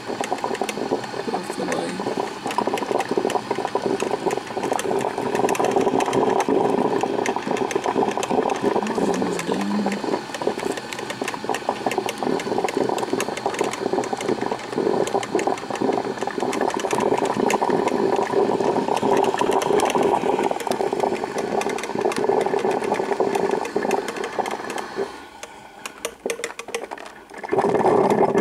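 Black & Decker drip coffee maker brewing, with a continuous rapid sputtering and gurgling as it heats and pumps water through. The sound drops away suddenly for a couple of seconds near the end, then starts again.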